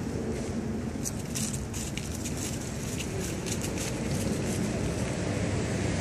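Faint crackling of fallen leaves underfoot, over a steady low rumble.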